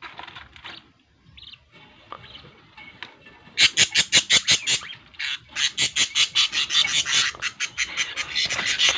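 Budgerigars chattering: soft scattered calls at first, then from about three and a half seconds a loud, rapid run of sharp high squawks, several a second.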